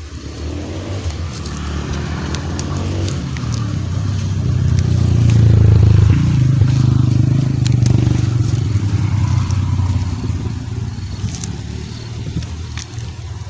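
A low rumble swells to its loudest about halfway through and then fades, over scraping, rustling and crackling as the leafy stems of wild water spinach are brushed through.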